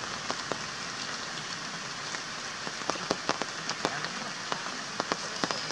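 Steady rain falling, with scattered sharp taps of drops landing close by.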